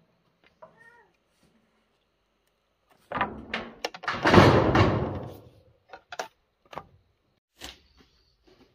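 A faint short meow-like call about a second in, then a burst of knocks running into a loud, rough scraping clatter that lasts about two seconds, followed by a few separate knocks.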